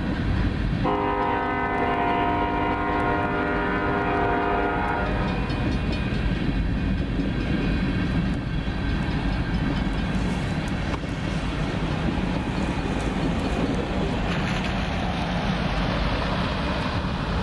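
Diesel locomotive horn sounding a chord of several steady notes, with a short break just after it starts and stopping about five seconds in. Throughout, the steady rumble of ballast cars' wheels rolling past on the rails.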